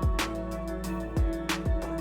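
Background music with a steady beat: sustained instrumental chords with drum hits roughly every half second.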